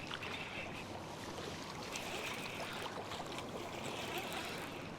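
Steady wash of river water and rain, with faint scattered ticks through it.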